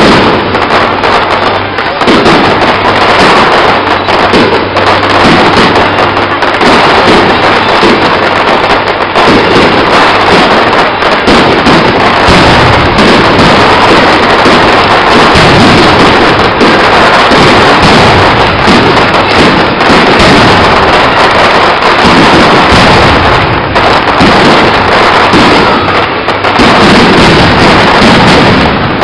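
Aerial firework shells bursting in a rapid, continuous barrage of bangs, very loud throughout.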